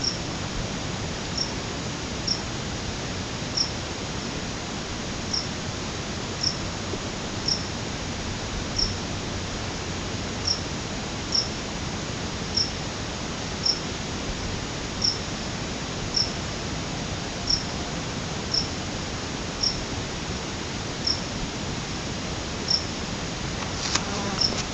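Outdoor mountain ambience: a steady hiss with a short, high-pitched animal chirp repeating about once a second. Near the end a brief, louder sound sweeps across the hiss.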